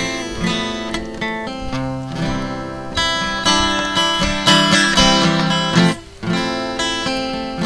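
Acoustic guitar strummed, the chords changing every second or so, with a brief break about six seconds in.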